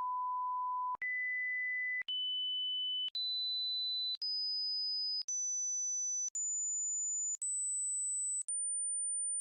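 Hearing-test tones: a run of pure steady tones, each held about a second with a brief break between, every one higher than the last, climbing from a mid-pitched beep to a thin, very high whistle.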